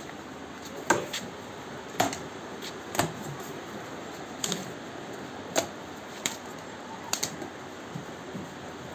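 Sharp clicks and knocks at irregular intervals, about one a second, over a steady background hiss.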